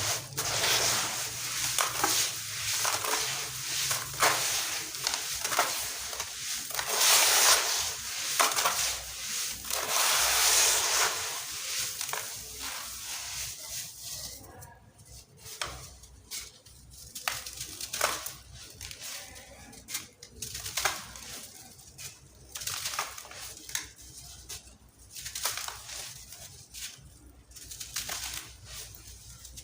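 Crunchy sand-cement chunks being crumbled: a dense, gritty crunching for about the first twelve seconds, then thinning to scattered separate crunches and crackles.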